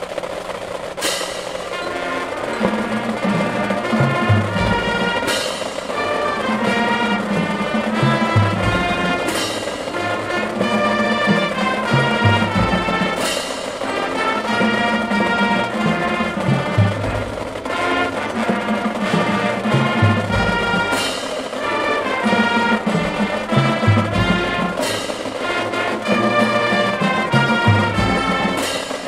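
Marching band playing a brass-led piece over drums, with low bass drum hits and a cymbal crash every few seconds.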